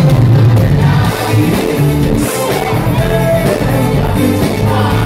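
Live Greek pop song played loud over a concert sound system: a male lead singer with full band backing and a heavy bass line.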